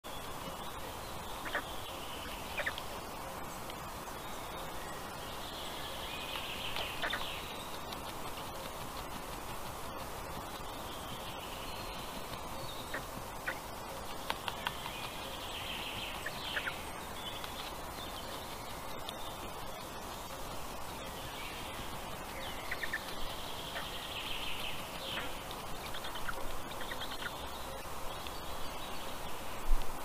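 Faint high chirping and peeping from black stork chicks calling inside their hatching eggs, one egg already pipped. The calls come in short bouts every few seconds over a steady background hiss.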